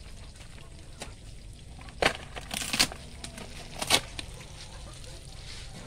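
Old, weathered thin boards being snapped and torn apart by hand: sharp cracks about two seconds in, a longer splintering crack a little later, and another crack near four seconds.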